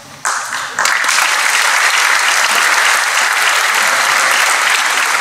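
Audience applauding, starting within the first second and then holding steady.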